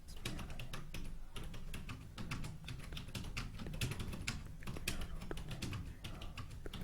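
Fast typing on a computer keyboard: a continuous run of key clicks, several a second, as a timed typing test is being taken.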